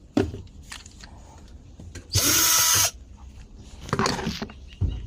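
A power drill runs in one short burst of just under a second, among scattered clicks and knocks from handling tools and machine parts.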